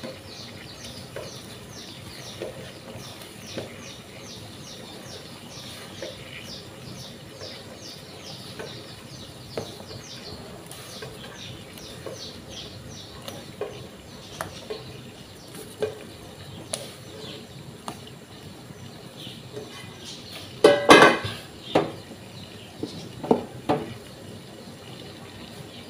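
Rice-flour dumplings dropped one by one into a pot of boiling water, with soft plops and light knocks against the metal pan, while a bird chirps in quick repeated notes through the first half. About 21 seconds in, a black non-stick pan is set down on the gas stove's burner grate with a loud metal clatter, followed by a few lighter knocks.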